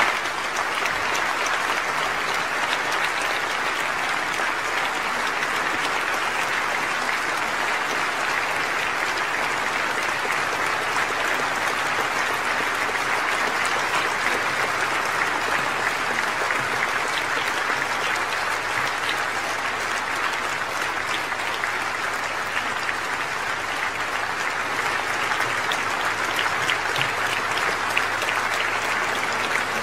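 Large audience applauding steadily, a dense, even clatter of many hands that holds at one level throughout.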